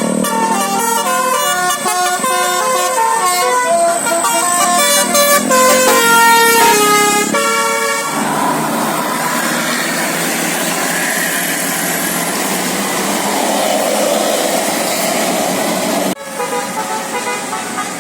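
Bus basuri telolet horn playing a quick melodic tune of rapid, shifting notes for about seven seconds. Then comes about eight seconds of steady noise with no tune, and the horn melody starts again abruptly near the end.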